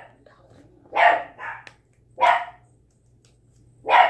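Pet dog barking indoors: four short barks at uneven gaps, the second one quieter than the rest.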